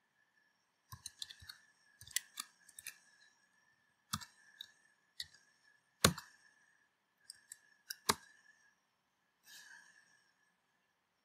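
Keystrokes on a computer keyboard: irregular sharp key clicks in short bursts, with a few harder strikes near the middle.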